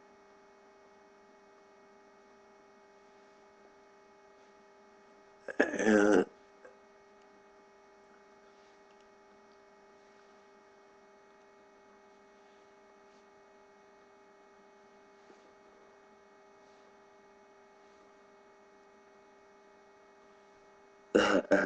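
Faint steady electrical hum made of several fixed tones, broken by a short burst of a man's voice about six seconds in and another right at the end.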